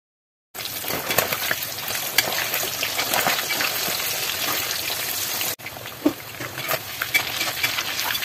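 Boiled meat pieces deep-frying in hot oil in an iron wok: a dense crackling sizzle, with clicks and scrapes of a slotted spoon stirring them. It starts about half a second in, breaks off for an instant a little past halfway and comes back quieter.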